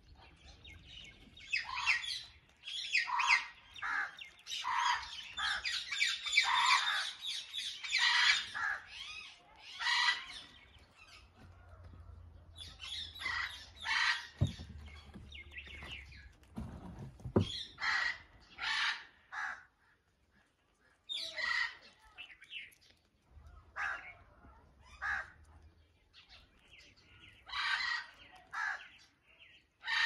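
Indian ringneck parakeets calling: repeated short calls in clusters, most continuous in the first ten seconds, then in shorter groups every few seconds.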